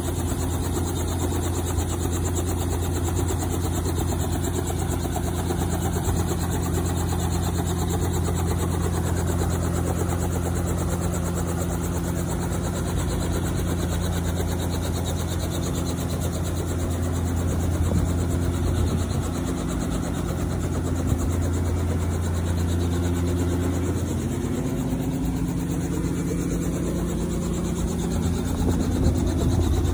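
Helicopter engine and rotor running with a steady low drone, its pitch shifting and wavering for a few seconds around the middle before settling again.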